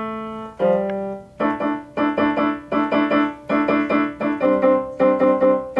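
Piano playing a short phrase: a held low note moving to a second one, then repeated chords struck in a quick, steady pulse, with a higher note joining about four and a half seconds in.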